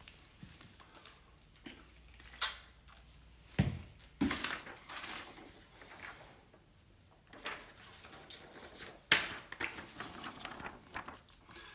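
Handling noises: a few sharp knocks and clatters, the loudest about two and four seconds in and again near the end, with rustling in between as a sheet of paper is picked up and handled.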